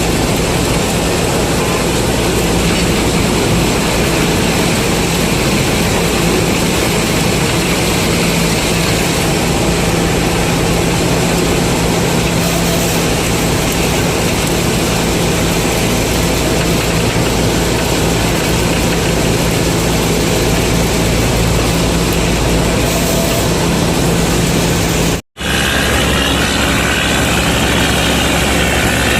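Combine harvester engine running steadily under load, a continuous mechanical drone with a steady low hum. About 25 seconds in the sound cuts out for an instant and comes back with a slightly different tone.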